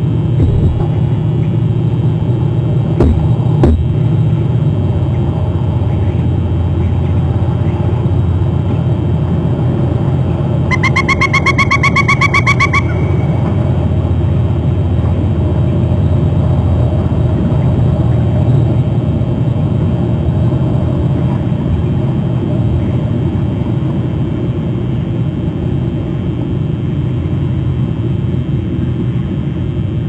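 Steady low rumble throughout, with a few sharp knocks in the first four seconds. About eleven seconds in comes a quick two-second run of rapid, evenly spaced high pitched pulses.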